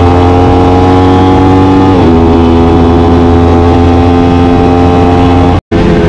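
Aprilia RS 660's 659 cc parallel-twin engine through an SC Project CR-T exhaust, heard from onboard while riding, running at fairly steady revs. About two seconds in the pitch steps down at an upshift, and near the end the sound cuts out for an instant.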